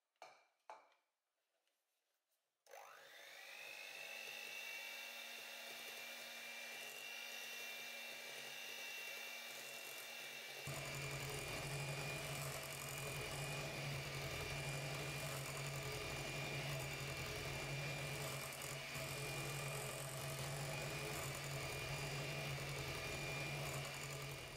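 Electric hand mixer creaming butter and sugar in a glass bowl: a couple of short clicks, then the motor starts about two and a half seconds in with a quick rising whine that settles to a steady pitch. About ten seconds in it grows louder and fuller.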